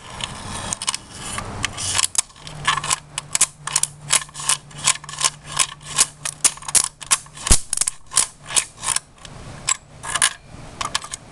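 Electric arc from a 13.8 V, 23 A power-supply lead sparking against a motherboard's RAM slot: rapid sharp crackling snaps, about four a second, with a low steady hum under them, thinning out near the end.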